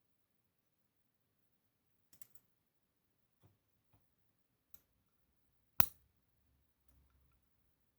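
A few small sharp clicks and taps of parts and tools being handled while a DOM Plura pin-tumbler lock is taken apart, with a short cluster about two seconds in and one louder click near six seconds in, followed by faint handling noise.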